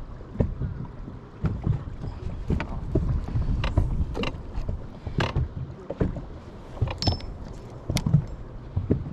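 Wind buffeting the microphone as a low rumble, with irregular knocks and slaps of choppy water against the fishing boat's hull.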